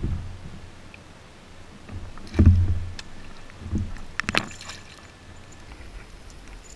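Gear being handled aboard a plastic sit-on-top kayak: a heavy thump about two and a half seconds in, a softer knock near four seconds, then a few sharp clicks as the fishing rod and landing net are moved.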